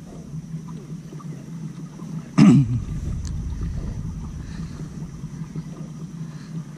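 Steady low rumble of a kayak moving across calm water, with wind on the microphone. A short voice-like call cuts in loudly about two and a half seconds in.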